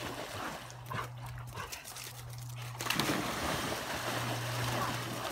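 Water splashing as two large dogs, a Great Pyrenees mix and a golden retriever, paddle and bound through a river, with heavier splashing from about three seconds in.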